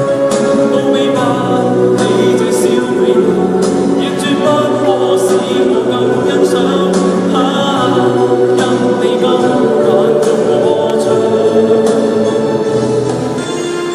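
A vocal group singing sustained chords in close harmony, with no clear words, over light, regular percussive ticks that keep a beat.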